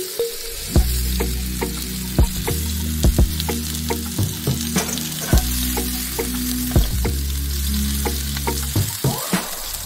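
Marinated pork tenderloin pieces sizzling on a hot ridged grill pan as more are laid down with a fork, with frequent sharp clicks of the fork and meat against the pan. Soft background music with sustained low notes runs underneath.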